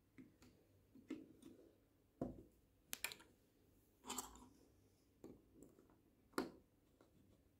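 Faint, scattered clicks and taps of plastic minifigures and bricks being handled: a figure set down on the table and another pressed onto a brick stand, about six small knocks in all.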